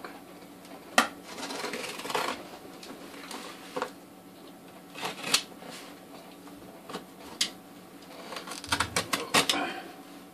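A utility knife cutting packing tape on a small cardboard box, with the box being handled: scattered sharp clicks and short scraping rasps, and a quick run of clicks and scrapes about nine seconds in.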